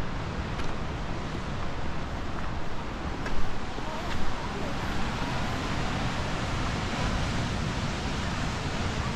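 Ocean surf washing and breaking on a rocky shore, a steady rush mixed with wind buffeting the microphone. It swells briefly louder twice, about three and four seconds in.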